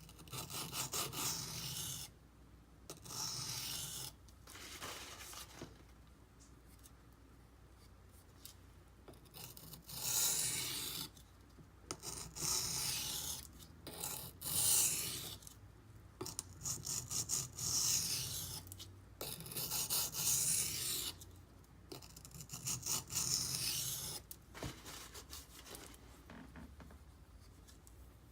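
A D2 steel knife blade scraped across a coarse 240 grit silicon carbide benchstone in repeated bursts of quick strokes, each burst lasting a second or two with short pauses between.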